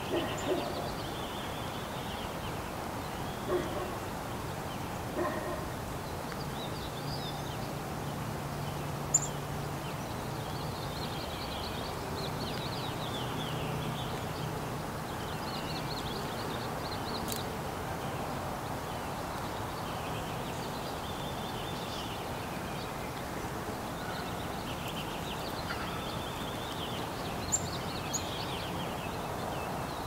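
Small songbirds twittering and chirping in short bursts over a steady outdoor hiss, with a few sharp clicks, the loudest about nine seconds in and another near the end. A faint low hum runs underneath for several seconds in the first half.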